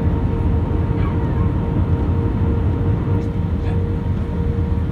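Airbus A320 jet engines and airflow heard as a steady low rumble, with a constant tone running through it.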